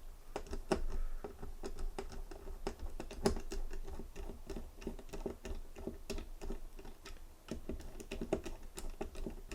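A small screwdriver working a tiny screw out of a Zippo butane lighter insert: a run of light, irregular clicks and scrapes of metal on metal.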